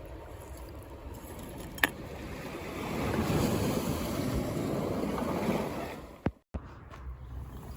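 Water sloshing and splashing for a few seconds in the middle, with a single sharp click before it and a brief cut-out near the end.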